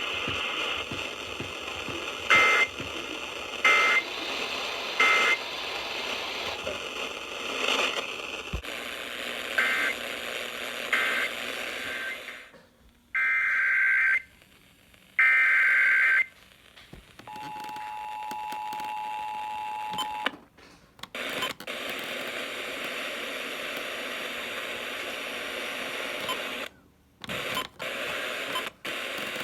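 Emergency Alert System signalling received over the radio with steady hiss: three short digital data chirps a little over a second apart, then after a pause two one-second data bursts, followed by the steady two-tone attention signal for about three seconds.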